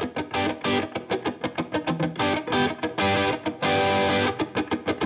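Intro music: an electric guitar with a distorted effect playing fast, rhythmic picked notes.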